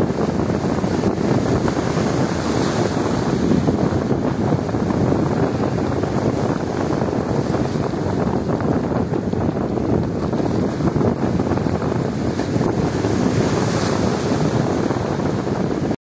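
Strong wind buffeting the microphone over waves washing and breaking against concrete tetrapod breakwater blocks: a steady rushing noise without a break.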